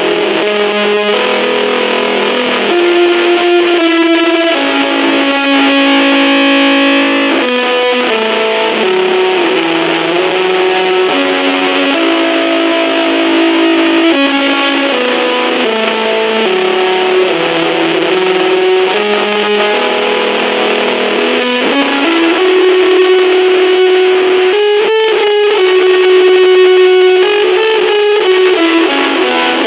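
Distorted electric guitar played through a small battery-powered Junkbox amp: a slow melodic line of held notes, each ringing a second or two, stepping up and down in pitch.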